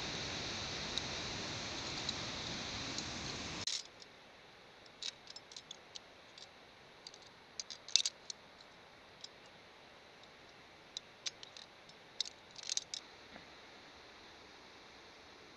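A steady rushing noise cuts off abruptly about four seconds in. Then come scattered sharp metallic clicks and clinks of via ferrata lanyard carabiners being handled and clipped along the steel safety cable, the loudest about halfway through.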